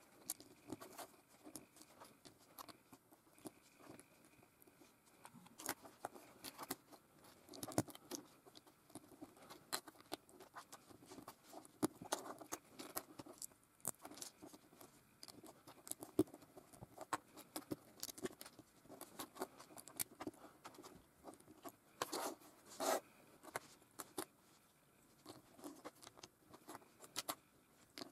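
Small plastic LEGO pieces being handled and pressed together on a tabletop: irregular light clicks and taps with soft rustling, and a louder scrape of pieces about three-quarters of the way through.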